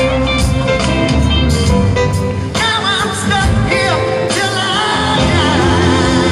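Live rock band playing, with bass, drums, guitars and keyboards under sung lead vocals that hold long wavering notes.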